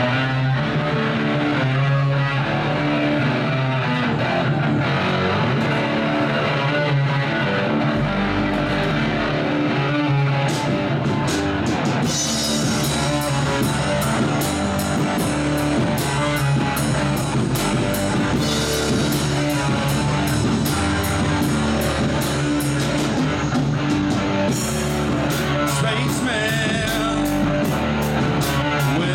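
Live rock band playing: electric guitar and bass guitar over a steady groove, with drum-kit cymbals coming in about twelve seconds in. A singer's voice comes in near the end.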